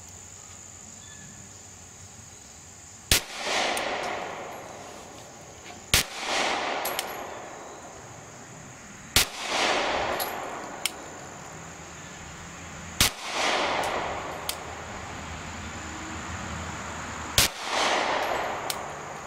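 Five single shots from a Glock 43 9mm subcompact pistol, fired slowly a few seconds apart, each followed by a rolling echo that swells and dies away over about a second.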